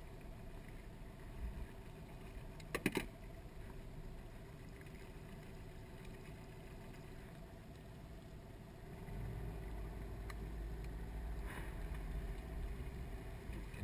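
Steady low hum of a small boat's motor as the aluminium tinny moves, with a few sharp knocks about three seconds in. The low rumble grows louder about nine seconds in.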